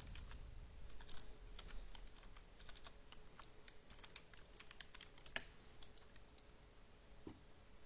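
Computer keyboard being typed on: faint, irregular keystrokes as a new file name is entered, with one sharper click about five and a half seconds in.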